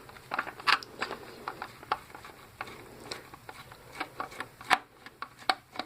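Phillips screwdriver working screws out of a plastic pump housing: irregular small clicks and scrapes of the tip and screws against the plastic, with a few sharper clicks.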